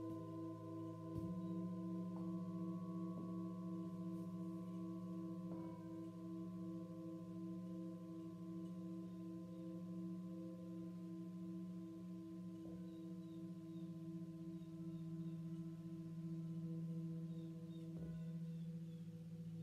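Three metal singing bowls struck in turn with a felt mallet and a wooden mallet, about five strikes. Their deep and higher tones overlap and ring on with a slow wavering pulse.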